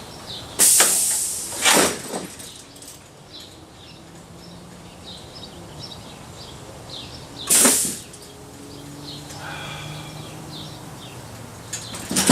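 Pneumatic air cylinder on a scissor hinge prop firing at about 65 psi: a loud burst of compressed-air hiss about half a second in, a shorter one near two seconds, another around seven and a half seconds and more near the end as the valve exhausts. The mechanism is not working right: the PVC arms twist and bind, so the prop will not come back in.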